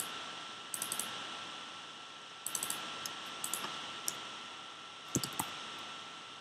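Computer keyboard keystrokes and mouse clicks in small scattered clusters, the loudest with a duller thump about five seconds in. Under them is a steady hiss with a faint constant high tone.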